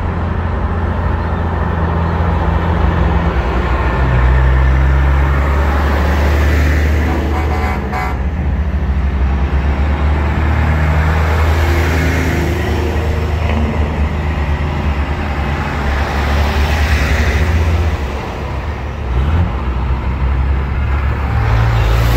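Diesel engines of big-rig semi trucks passing close by one after another in a slow convoy, with a deep engine hum that shifts as each truck goes by and steady tyre noise on the road. A short horn sounds about eight seconds in.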